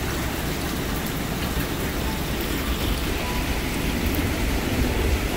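Steady rain falling, an even hiss without a break.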